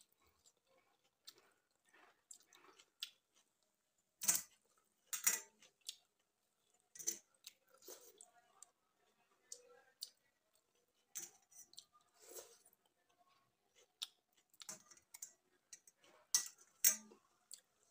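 Close-up eating sounds of panta bhat eaten by hand: chewing and lip smacks, with wet squelches of fingers mixing rice in water in a steel bowl. A series of short sharp clicks and smacks, loudest about four and five seconds in and near the end.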